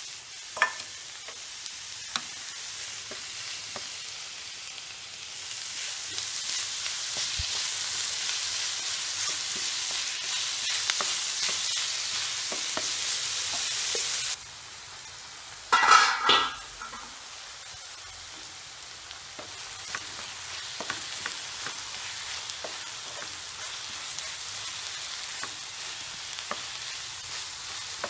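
Onions and tomatoes sizzling in a frying pan, with scattered clicks of stirring. The sizzle grows louder through the middle and drops off sharply about fourteen seconds in. A loud metal clatter follows about two seconds later, as a steel plate lid is handled.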